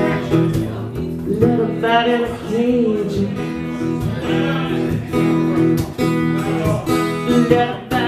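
Live folk-blues song: a Washburn acoustic guitar strummed and picked, with a woman singing over it.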